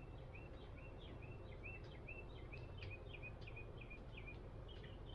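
A bird singing a long string of repeated short notes, about two to three a second, switching to a different, higher phrase near the end, faint over a low background rumble.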